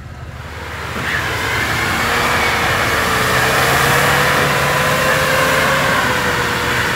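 Off-road 4x4 SUV engine revving under load as it drives through deep mud, rising over the first couple of seconds and then held high and steady.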